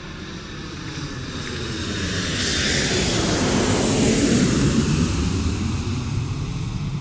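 Jet aircraft flying past: a rushing engine noise that swells to its loudest about four seconds in, falling in pitch as it passes, then fades away.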